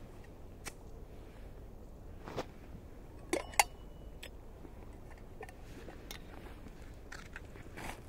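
Handling noises from camping gear on snow: scattered small clicks and crunches as a thermos bottle is set down and the Trangia stove is handled, the loudest a sharp click about three and a half seconds in with a brief thin ring after it.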